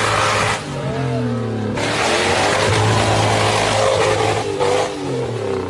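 Off-road vehicle engine revving hard, its pitch rising and falling repeatedly, under a loud rushing noise that cuts out about half a second in and comes back just before two seconds.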